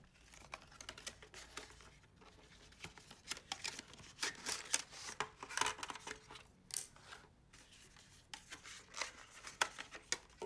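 Unboxing noise: a cardboard retail box being opened and a moulded orange plastic tray handled, with irregular scraping, rustling and small clicks of packaging as the hub is lifted out.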